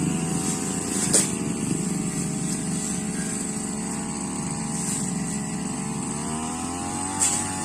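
Brush cutter engine running steadily, its pitch rising near the end as it is throttled up. There is a sharp knock about a second in and another near the end.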